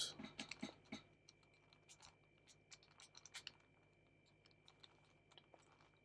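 Faint clicks and scrapes of a plastic shape-mod puzzle cube's layers being turned by hand: a quick run of clicks in the first second, then scattered single clicks.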